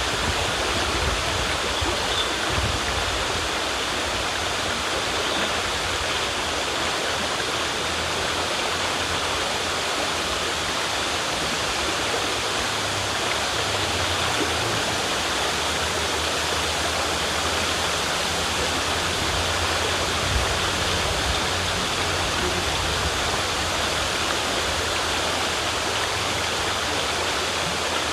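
River water rushing and splashing steadily over rocks.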